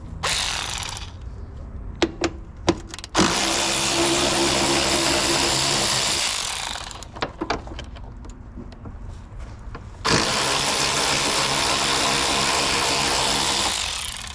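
Power drill driving out the 8 mm screws of an engine air-cleaner housing, run in two long spells of about three and a half seconds each, with a few tool clicks and knocks between them.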